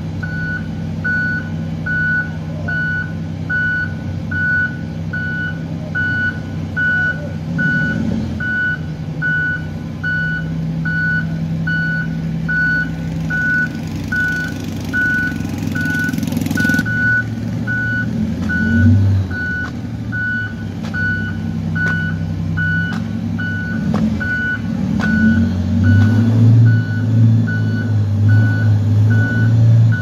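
Reversing alarm of a large off-road mining dump truck beeping steadily at one pitch as the truck backs down a ramp, over the rumble of its diesel engine, which grows louder near the end. A hiss runs for a few seconds midway and cuts off sharply.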